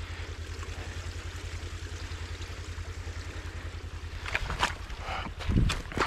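Steady low rush of water flowing at a beaver dam, then a few sharp splashes and knocks near the end as a body-grip beaver trap is lowered into the water.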